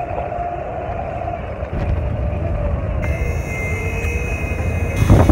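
Abra water taxi's diesel engine running under way, a steady low rumble with a wavering whine over it. A brief loud burst of noise near the end.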